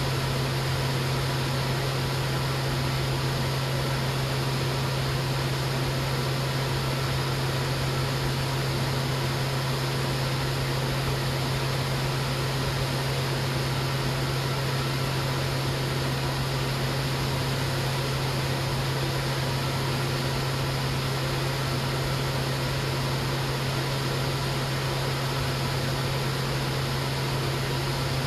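Steady low hum over constant hiss, unchanging throughout.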